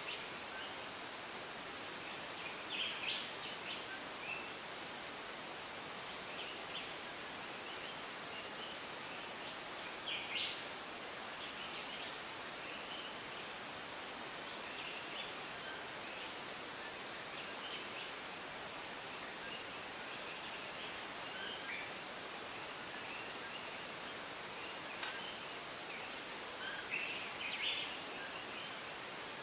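Tropical rainforest ambience: a steady hiss with short, high chirping calls scattered throughout, a few every several seconds.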